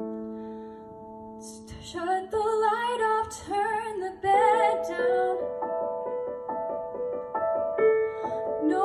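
A held piano chord dies away, then a woman's solo voice comes in about two seconds in, singing a slow musical-theatre ballad with vibrato over piano accompaniment playing repeated chords.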